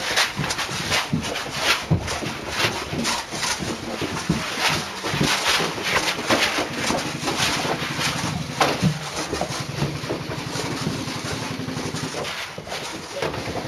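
Several people running in step over a floor strewn with rubble and broken debris: irregular crunching footfalls and thuds, several a second.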